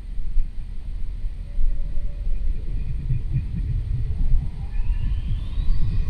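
Low, fluttering rumble, with a faint tone rising in pitch over the last second or so.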